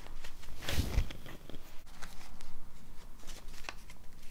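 A handmade notebook's paper cover and pages being handled and opened, with paper rustling and light taps, and a soft thump about a second in as it meets the cutting mat.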